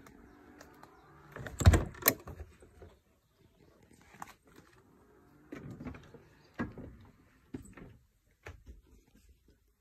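The side door of a Hymermobil motorhome is unlatched and opened, with two sharp clacks about two seconds in. Scattered lighter knocks and thuds follow as someone steps inside.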